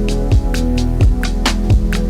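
Electronic music with a steady beat: a deep kick drum about every 0.7 seconds, crisp hi-hat and snare hits between, over a held bass.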